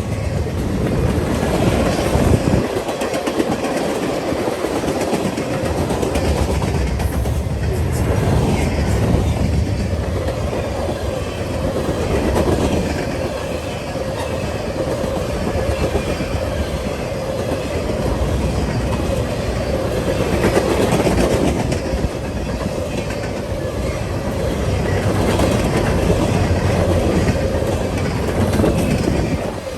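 A train passing, its steel wheels running over the rails with a steady, loud rumble.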